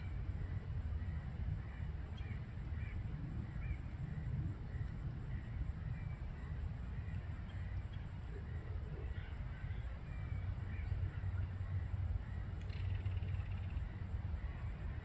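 Outdoor ambience: a steady low rumble with faint, short bird calls repeating through it.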